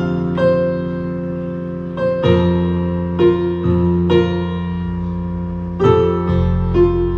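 Roland Juno keyboard played with a piano sound in a slow passage, a new note or chord about every second, over held low bass notes.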